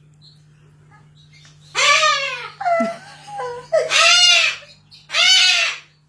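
Cockatoo screeching: three loud, long calls, each rising and falling in pitch, starting about two seconds in, with shorter squawks between the first two.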